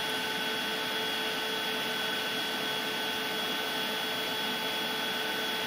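EMotorWerks SmartCharge-12000 EV charger running at full load, about 30 amps at 332 volts (10 kW): a steady whirring noise with several steady high tones, unchanging throughout.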